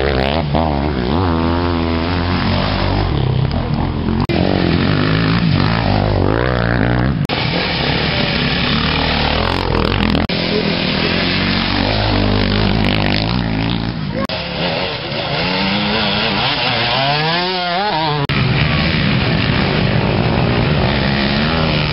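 Enduro dirt bike engines revving hard, pitch rising and falling with the throttle, as bikes ride through a muddy water crossing. The sound changes abruptly every few seconds.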